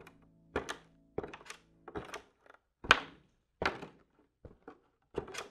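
Sound effect of hard clacking knocks, about eight of them in an uneven walking rhythm, some in quick pairs.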